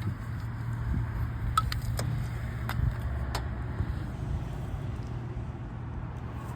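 Light metallic clicks and taps of tools and parts being handled in a car's engine bay, over a steady low hum.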